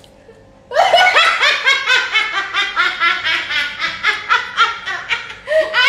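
A person laughing in a fast, even run of high-pitched bursts, about five a second, starting about a second in.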